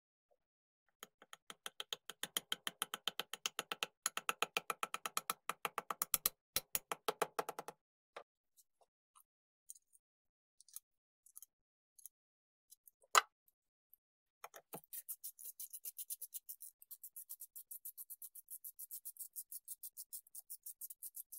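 A hand screwdriver's ratchet clicks quickly and evenly as screws are driven into an aluminium gearbox cover. There is a single sharp knock about halfway through, and the clicking comes back fainter and higher near the end.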